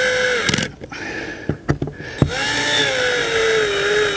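Cordless drill driving screws into a plastic skylight flange. The motor whine stops about half a second in, a few sharp clicks and knocks follow, and then the motor starts again, its pitch sagging slowly as the screw runs down. The drill's clutch is set low, so the screws are only pushed flush and not fully tightened.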